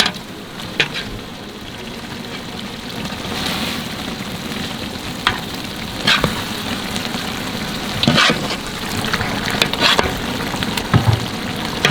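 Spiced biryani masala sizzling in a large pot as whole turkey legs fry in it, with a few scrapes and knocks of a stirring spoon against the pot.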